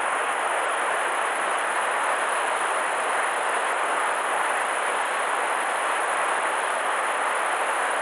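Steady rushing of a river's current, running high after a typhoon, as an even hiss with no breaks.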